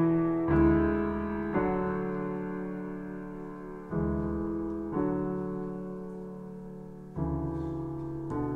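Slow piano chords, six of them, each struck and left to ring out and fade before the next.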